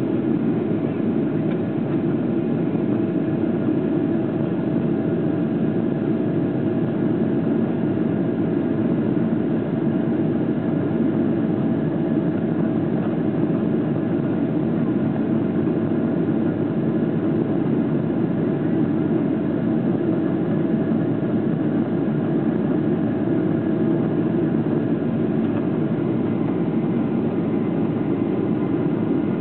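Steady cabin noise inside a Boeing 777-200LR in the climb: the GE90 engines running and air rushing past the fuselage, a low rumble with a faint steady hum above it and no change in pitch.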